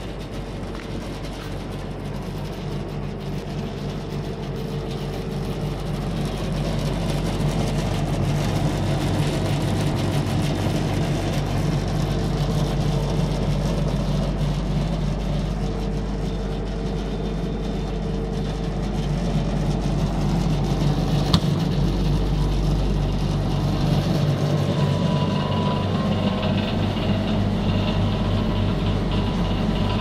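Steady electrical hum of running machinery: a low drone with a buzzing overtone. A single sharp click comes about two-thirds of the way through, after which a higher steady tone joins the hum.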